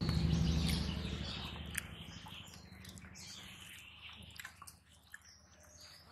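Fingers squishing and mixing rice with fish curry on a steel plate, with birds chirping in the background. A louder low rumble starts suddenly at the beginning and fades away over about three seconds.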